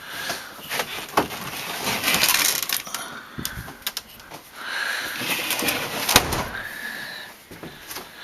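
A hinged table top and leg being handled: scraping and sliding with a faint squeak, broken up by several sharp clicks and knocks.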